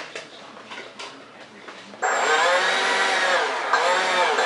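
A 70 mm ten-blade electric ducted fan with a 2600 kV motor, in a foam-board RC jet, starts up abruptly about halfway through and runs with a loud whine. Its pitch swells and dips with the throttle. Before it starts there are only a few faint handling knocks.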